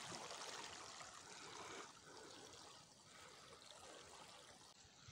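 Water running through a freshly opened valve in a black plastic water supply pipe, a faint steady rushing that drops quieter about two seconds in.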